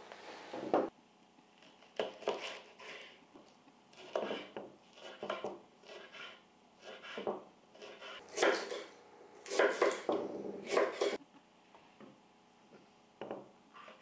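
Kitchen knife slicing peppers into julienne strips on a bamboo cutting board: irregular knocks of the blade against the wood in short runs a second or two apart, loudest about eight to eleven seconds in.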